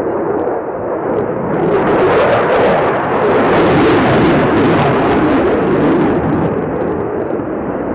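Jet noise from a Sukhoi Su-35 fighter's twin turbofan engines, swelling about a second and a half in, loudest around four seconds, then easing off.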